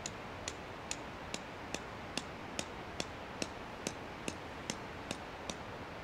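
A steady run of sharp, evenly spaced ticks, about two and a half a second, over a constant hiss; the ticking stops near the end.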